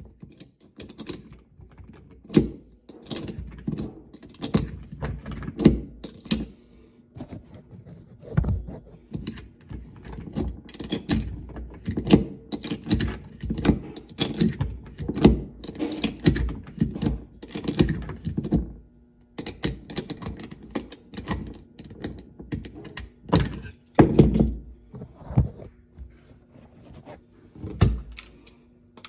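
Beretta 92S 9 mm pistol firing a long run of shots, irregular, often one or two a second with a few short pauses, each sharp report followed by a brief echo.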